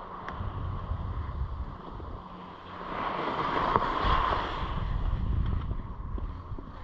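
Wind buffeting an action camera's microphone while skiing downhill, with the hiss and scrape of skis on snow, louder for a couple of seconds about halfway through.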